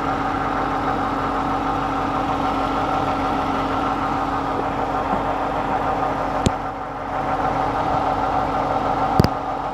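2008-era Toyota Highlander's engine idling steadily, freshly filled with oil after an oil change. Two sharp clicks come in the second half, about two and a half seconds apart.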